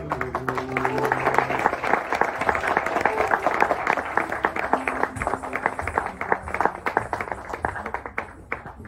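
Audience applause at the end of an Odissi dance piece. The last held notes of the accompanying music fade in the first second or so. The clapping thins out and gets quieter toward the end, then cuts off suddenly.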